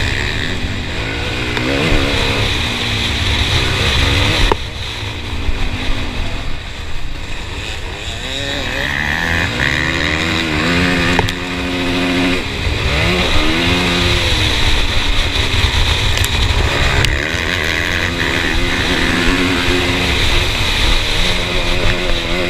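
Motocross bike engine heard from on board, revving up and dropping back again and again through gear changes as it races over the dirt track.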